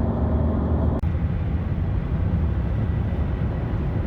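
An engine running steadily with a low hum, with an abrupt cut about a second in to a similar stretch of engine sound.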